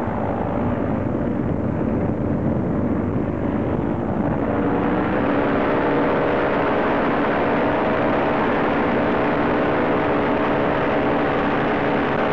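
Hovercraft engine and caged propeller running hard, heard from on board. About four seconds in the engine speeds up and holds at the higher pitch, with a louder rush of air on top.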